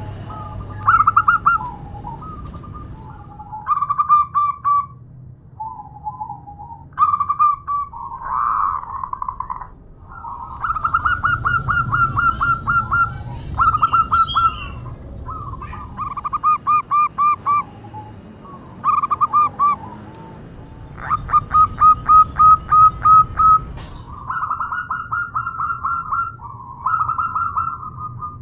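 Zebra doves (perkutut) cooing: phrases of fast, rippling staccato notes, one after another with short gaps. The calls are given as a female calling to a male.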